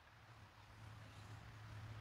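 Near silence: faint forest ambience, a soft steady hiss with a low hum underneath, swelling slightly toward the end.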